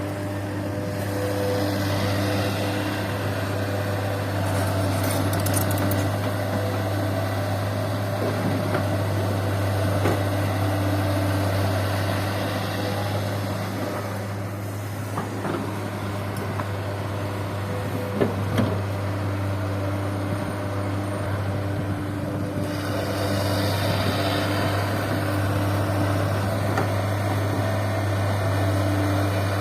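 Heavy diesel engines of an excavator and a dump truck running steadily while the excavator loads fill soil into the truck's bed. Two sharp knocks come about two-thirds of the way through.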